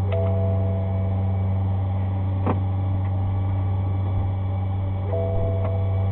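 Steady low hum of a car idling, heard from inside the cabin. Two short held tones of about a second each, horn-like, come near the start and again about five seconds in, with a single sharp knock between them.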